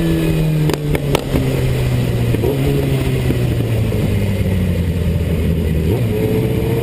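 Suzuki Bandit 650 S's inline-four engine heard from the bike itself as it slows: the engine note falls in pitch, with a few sharp clicks about a second in, then runs on at lower revs, rising slightly near the end. Wind rumbles over the microphone throughout.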